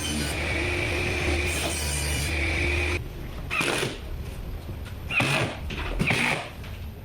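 A woodworking power tool's motor runs steadily with a high whine for about three seconds, then stops suddenly. Four short, separate rasping strokes follow, roughly a second or so apart.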